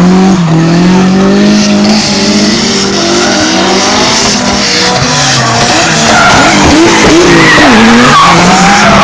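Drift car engine revving up and down while its tyres squeal and skid through a slide. The tyre squeal grows louder and wavers in pitch from about six seconds in.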